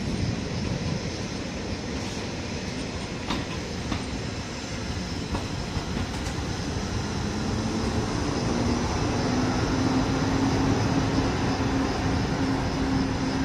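ÖBB Siemens Taurus electric locomotive running light past at low speed, its wheels rolling on the rails, getting slowly louder. About seven seconds in a low electric hum starts and steps up in pitch.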